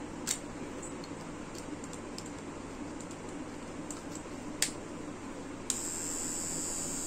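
Cordless hair clipper being handled: a few sharp plastic clicks as its adjustable comb guard is set and locked, then the clipper is switched on for about a second and a half, a high steady whir that cuts off with a click.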